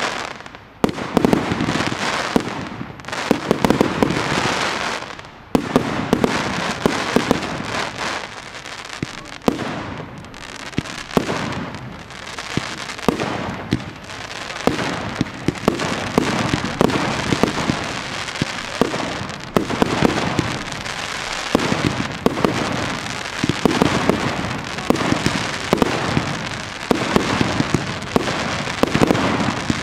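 Fireworks display: aerial shells and low-level effects going off in a dense stream of sharp bangs and cracks, many overlapping each second.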